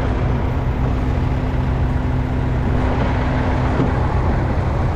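Tractor engine running steadily at low revs, with a steady higher hum that stops about four seconds in.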